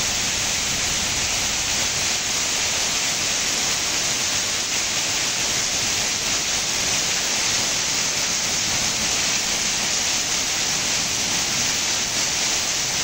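Heavy rain pouring off a roof edge in a sheet and splashing onto the ground below, a steady hiss.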